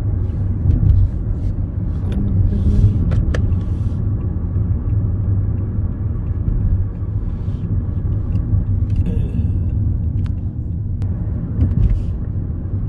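Steady low rumble of a moving car heard from inside the cabin: road and engine noise while driving, with a few light clicks and ticks.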